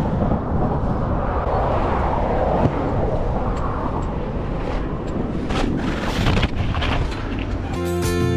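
Wind buffeting the microphone over the rumble of an e-bike riding along a rough narrow track, with a few knocks from bumps. Guitar music comes in near the end.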